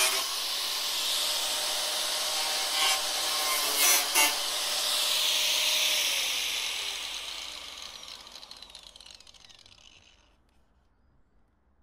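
Hitachi angle grinder cutting metal, with a few harder bites about three and four seconds in. The grinder is then shut off: its whine falls as the disc spins down, and the sound fades out by about ten seconds in.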